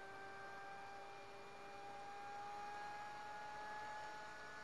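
Faint whine from a car battery charger's switch-mode power stage running under test: several thin steady tones that drift slowly upward in pitch.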